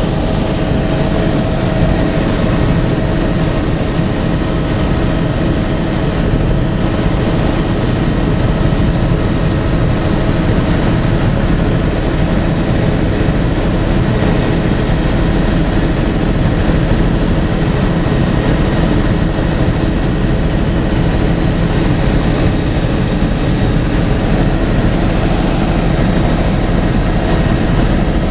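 Helicopter engine and rotor noise heard from inside the cabin in flight: a steady low rumble with a constant high-pitched whine over it.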